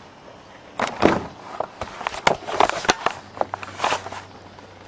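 A quick, irregular run of clicks, knocks and rustles from something being handled, lasting about three seconds and stopping shortly before the end.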